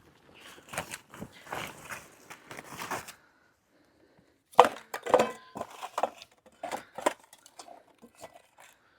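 Irregular small knocks, clinks and crinkly rustles from firewood and paper being handled, with a short lull about halfway through.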